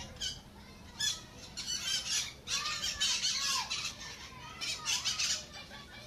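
Parrots screeching, several overlapping calls in bursts about once a second, some sliding up and back down in pitch.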